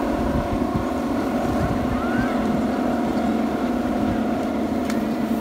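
Many bamboo windmills spinning in the wind, making a steady droning hum, with wind rumbling on the microphone.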